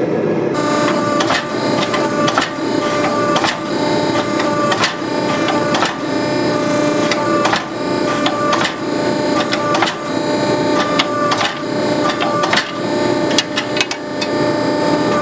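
Forging press running with a steady hum and a held whine, while sharp knocks come about once a second as its round dies squeeze a hot steel blade blank to forge out the bevel.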